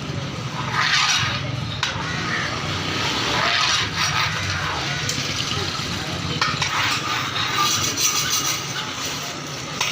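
Busy cooking-stall sounds: metal clinks and knocks of utensils on a large cooking pot over a steady low hum, with voices in the background.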